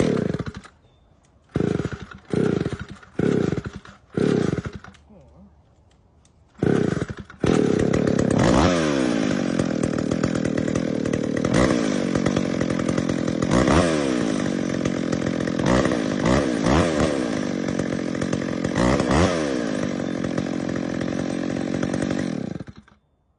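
60cc two-stroke chainsaw being pull-started: several short bursts as the engine fires briefly and dies. About seven seconds in it catches and runs, revved up and down a number of times, then it cuts off abruptly just before the end.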